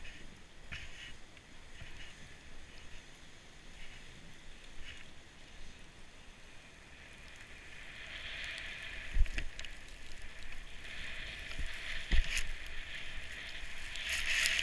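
Mad River Rocket plastic kneeling sled hissing as it slides through deep powder snow, the hiss growing louder from about halfway through. Two sharp knocks stand out, near the two-thirds mark and shortly before the end.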